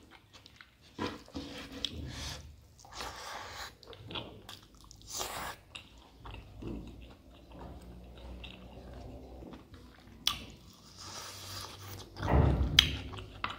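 Close-miked chewing and lip smacking of a person eating a spicy mutton-innards and rice meal by hand: irregular wet chews and small clicks, with a louder burst near the end.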